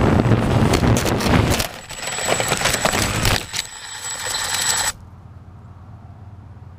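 Walkera QR X350 Pro quadcopter crashing: loud rotor and air rush with sharp knocks of the propellers striking, dropping suddenly about one and a half seconds in as it hits the ground, then clattering and a thin high whine from the motors until everything cuts off abruptly about five seconds in, leaving only faint hiss.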